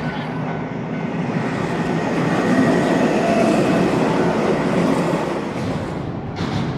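A train passing, its rumble growing louder to a peak a couple of seconds in and then slowly fading.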